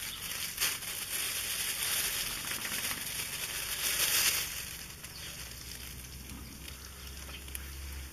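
Plastic bag rustling and crinkling as a bagged raw chicken is handled, loudest about four seconds in and dying down after about five seconds.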